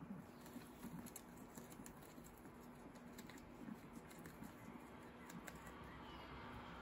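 Guinea pigs chewing fresh lettuce leaves: faint, irregular crisp crunching clicks.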